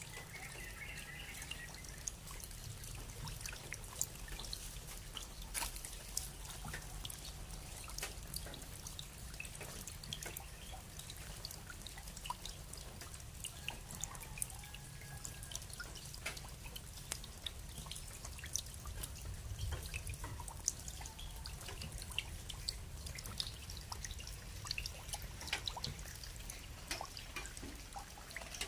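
Rain falling steadily, with many scattered drops ticking irregularly against a soft hiss.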